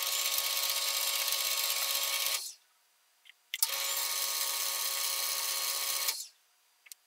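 Small Rivett metal lathe running under power in back gear, making two single-point threading passes on a small metric thread. It starts suddenly and runs steadily for about two and a half seconds, stops, then starts again about a second later for another two and a half seconds before winding down.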